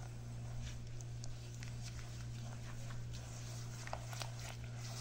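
Eggs, sugar and butter being beaten by hand in a glass bowl: quick, irregular light taps and clinks of the utensil against the glass, over a steady low hum.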